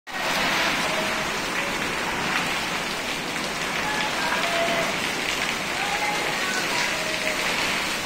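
Heavy rain falling steadily, with water streaming off a roof edge and splashing onto leaves and the ground.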